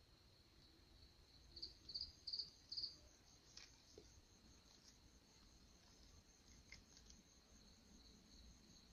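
Faint, steady trilling of crickets, with a run of four louder chirps about two seconds in.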